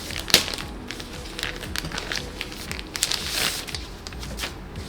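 Background music with plastic packaging crinkling and rustling as items are unwrapped, including a sharp click about a third of a second in and a longer rustle a little after three seconds.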